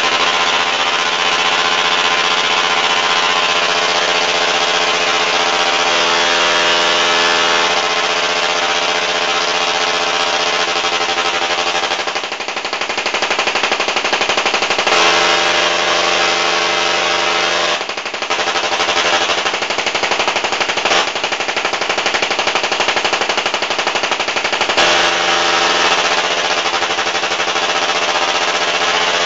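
Sparks from a 240 VAC solid-state Tesla coil (SSTC) breaking out from its toroid topload, making a loud, rasping buzz at the interrupter's rate. Its tone and pitch shift several times as the duty cycle is changed, with short dips about 12 and 18 seconds in.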